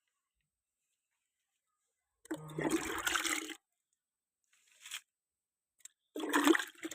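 Water pouring and splashing in two short bursts, with a faint brief splash between them.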